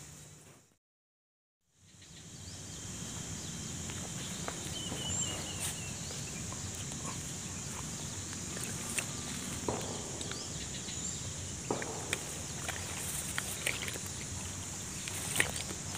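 Outdoor natural ambience with a steady high hum, scattered faint clicks and a few short chirps. The sound drops out about a second in and fades back up, and a few louder clicks come near the end.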